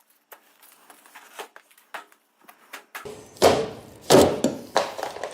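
Hands tearing and scraping at a botched body-repair patch. A few faint clicks and crackles come first, then three loud rasping tears in the last two seconds, spaced about two-thirds of a second apart.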